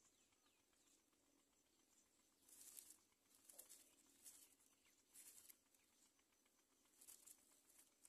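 Faint rustling and scratching of dry palm-fibre nest material as a great myna shifts about inside its nest, coming in several short bursts from about two and a half seconds in.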